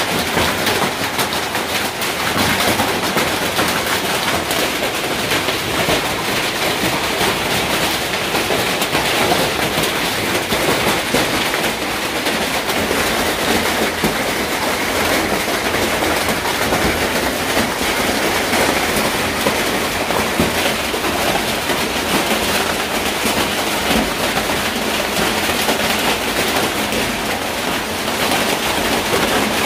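Heavy hail pelting corrugated tin roofs and plastic sheeting, a loud, steady, dense clatter of countless small impacts.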